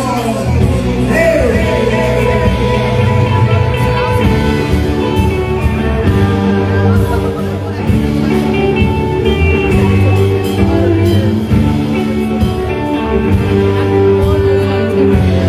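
A live band playing with saxophone, electric guitar and drums, heard loud from within the audience.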